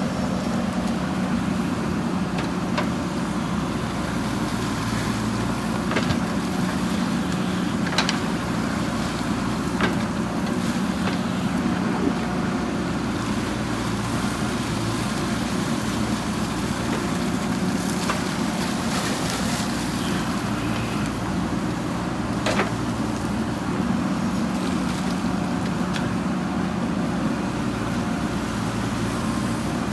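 JCB backhoe loader's diesel engine running steadily under work, with a few short, sharp knocks from the working machine.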